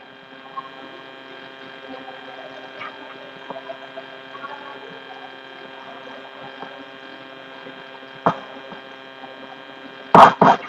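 Steady electrical mains hum with many evenly spaced overtones, with faint scratches and taps of chalk on a chalkboard. A sharp tap comes about eight seconds in, and two loud short bursts near the end.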